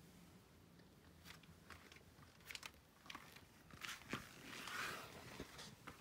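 Faint camera-handling noise: scattered small clicks and crunchy rustling, with a louder rustle about four and a half seconds in as the camera is lowered to film under the truck.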